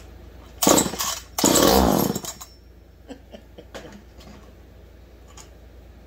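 Massey 190A chainsaw's two-stroke engine being pull-started twice in quick succession, each pull a loud burst of cranking, the second longer at about a second; the engine does not keep running. A few light clicks follow.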